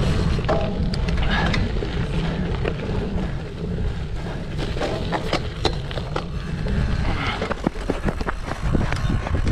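A cyclocross bicycle ridden fast over rough ground, with wind buffeting the microphone and a steady low rumble from the tyres. Many short clicks and rattles from the bike jolting over bumps, more of them in the second half.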